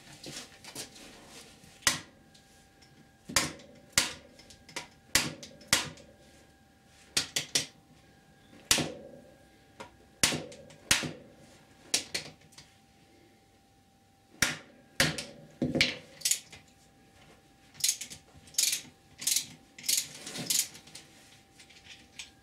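Irregular groups of sharp knocks and metal clinks from hand tools on a dirt bike's shock linkage: a rubber mallet tapping the linkage bolts to free them, and ratchet wrenches clicking against the bolts.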